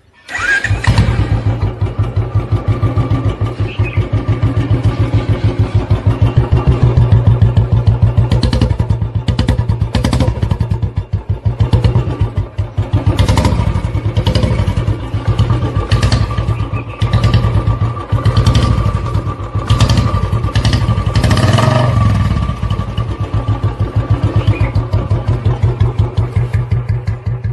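Royal Enfield Bullet single-cylinder motorcycle engine running at idle with its rapid, even exhaust beat, the throttle blipped several times so the note briefly rises and swells before settling back.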